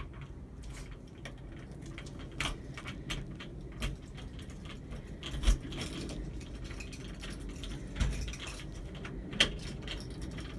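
Small metal pieces jingling and clinking on and off, with a few short dull thumps.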